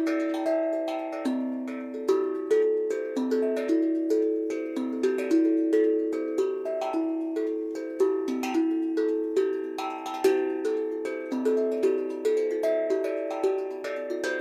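Steel tongue drum played with the hands: a steady flowing run of struck notes, several a second, each ringing on with a bell-like sustain so that the notes overlap.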